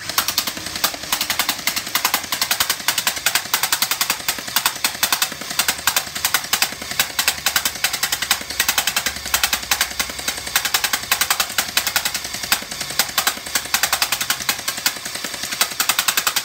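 Electric AK-47-style gel blaster firing full auto in one long unbroken burst, a rapid string of sharp shots. Its motor is powered by an 11-volt battery through a newly fitted contact trigger switch.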